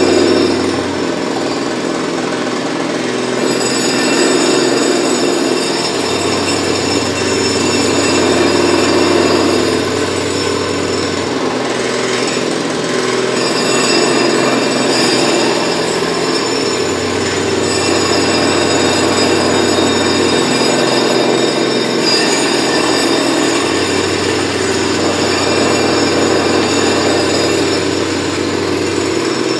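Jackhammer breaking up the road in street road work: a loud, continuous rapid rattle, over a low drone that comes and goes every few seconds.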